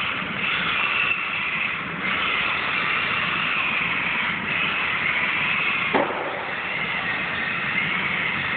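Traxxas Rally VXL radio-controlled car's brushless electric motor whining as it is driven hard on a concrete floor, the pitch rising and falling with the throttle in several surges. A sharp click sounds about six seconds in.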